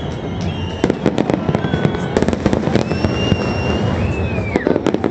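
Fireworks display: many rapid sharp cracks and crackling bursts over a continuous low rumble, with several thin whistles that hold their pitch and then drop away.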